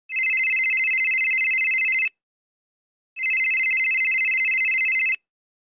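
Telephone ringing: two trilling rings, each about two seconds long, with about a second's pause between them.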